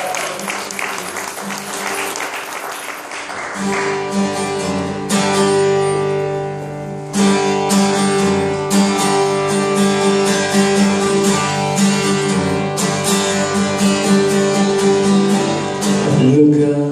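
Applause for about the first three seconds, then an acoustic guitar strummed through the PA in steady, rhythmic chords as a song's intro; a man's singing voice comes in right at the end.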